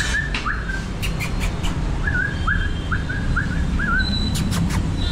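Short high-pitched chirping calls from an animal: a couple at the start and a quick run of about five in the middle, each rising sharply and then holding briefly. A few sharp clicks can be heard near the start and near the end, over a steady low rumble.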